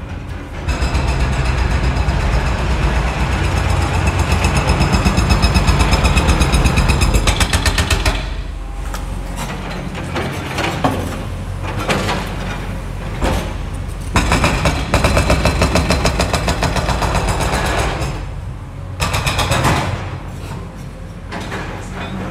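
Construction-site hammering: a percussive power tool pounding in rapid, even strokes. It runs loud for about the first seven seconds, then comes in shorter runs broken by pauses.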